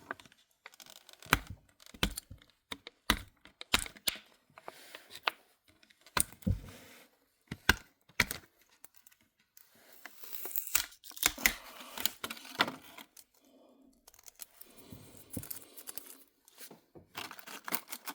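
Plastic packaging crinkling and tearing, with many small clicks and taps as a tiny plastic accessory part is freed and handled. The crinkling is busiest about halfway through.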